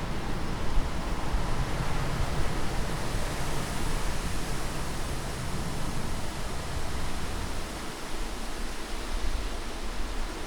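Steady rushing wind: an even hiss with a deep rumble underneath. The upper part of the rumble thins out about eight seconds in.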